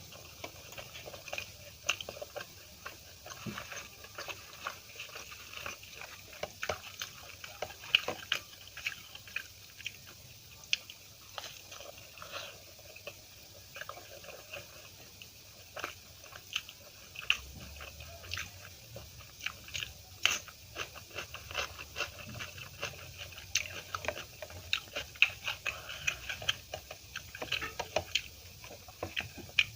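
Close-miked eating: a person biting and chewing food, with many short wet mouth clicks and crisp crunches scattered irregularly throughout.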